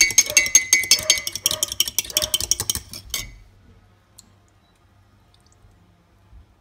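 Metal fork rapidly whisking egg and milk in a ceramic bowl, clinking fast against the bowl's sides, stopping about three seconds in.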